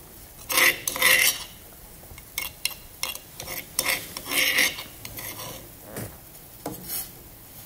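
Metal kitchen utensils clinking and knocking against a stainless steel cooking pot, a series of short separate clinks.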